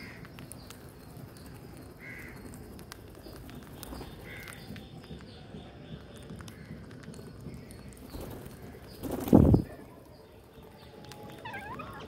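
Rose-ringed parakeets calling with short squawks among scattered small clicks, a brief loud whoosh about nine seconds in, and a wavering call near the end.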